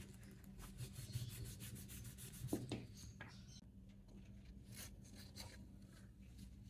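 Faint rubbing and rustling of a cloth rag and gloved hands on a knife's wooden handle and cloth-wrapped blade, densest in the first half, with one louder knock about two and a half seconds in. A low steady hum underneath.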